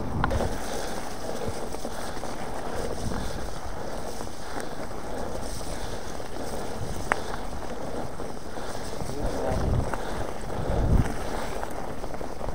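Wind buffeting an action camera's microphone while riding a mountain bike on a trail, a steady rush with low rumbling gusts, and one sharp click about seven seconds in.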